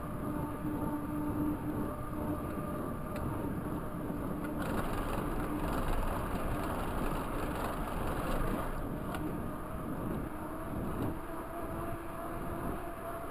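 Rolling noise of a Raleigh Talus 29er mountain bike's tyres on a paved trail, mixed with wind rushing over the microphone as the bike moves. It grows louder and brighter for a few seconds mid-way while the bike crosses a bridge deck.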